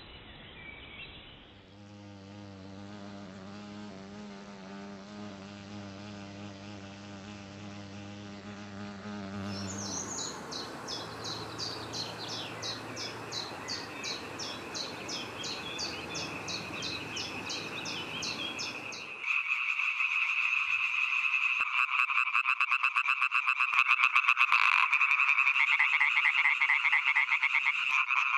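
European tree frogs calling in a loud chorus of rapid, pulsed croaks, which start about two-thirds of the way in. Before the chorus there is a low steady hum, followed by fast high-pitched ticking.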